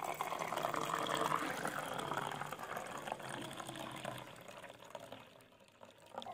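Herbal tea poured in a thin stream from a steel vessel into a glass tumbler, splashing as the glass fills; the pour fades out about five seconds in.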